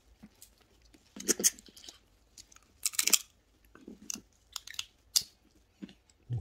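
Red snow crab being eaten: irregular crunches, cracks and snaps of shell being broken apart, mixed with chewing. The loudest snaps come about a second in, at three seconds and near five seconds.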